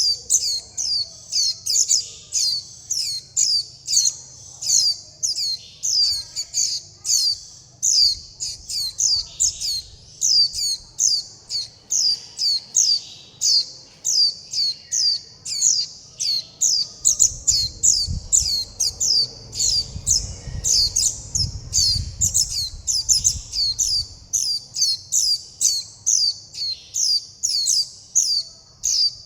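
Fledgling white-eye (vành khuyên) giving high, thin calls over and over, about two to three a second: begging calls of a young bird calling for its parent and asking to be fed.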